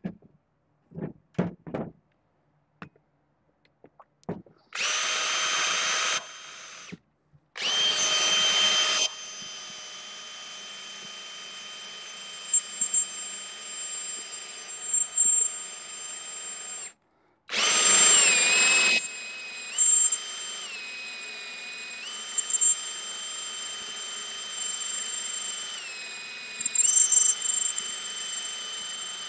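Electric hand drill boring through metal: a few handling clicks first, then the drill starts about five seconds in and runs through the rest, with three loud, harsh spells of cutting. It stops briefly partway and restarts, and its whine steps up and down in pitch as the load and trigger change.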